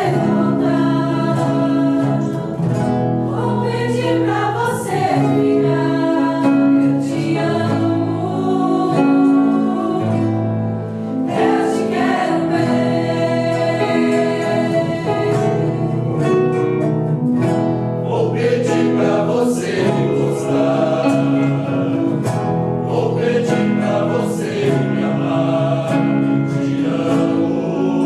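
A choir singing a song in several parts, with long held notes.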